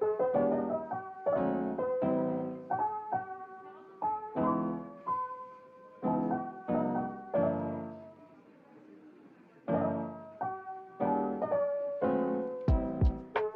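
Background music: a soft, slow piano melody of single struck notes that ring and fade, pausing briefly about two-thirds of the way through. Near the end a beat of low drum hits and crisp clicks comes in.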